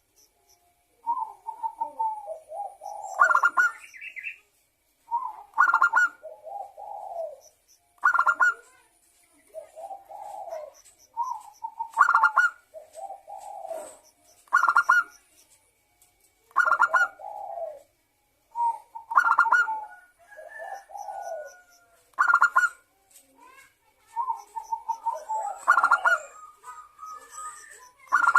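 Local perkutut (zebra dove) singing its cooing phrase over and over, one phrase about every two seconds. Each phrase is a loud, higher coo followed by lower coos.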